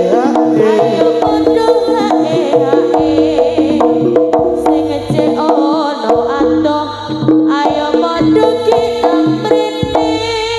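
Live Javanese jaranan music: hand drums (kendang) beating a steady pattern under a dense layer of pitched gamelan-style percussion and a melody line.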